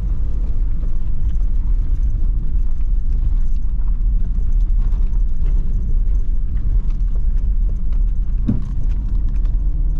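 Car driving on a rough unpaved track, heard inside the cabin: a steady low rumble of tyres and engine with faint scattered ticks.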